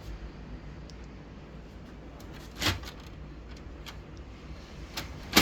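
Canon imageCLASS LBP122dw laser printer running with a steady low hum, with sharp clicks about two and a half seconds in and twice near the end, the last the loudest: the abnormal noise the printer is being repaired for.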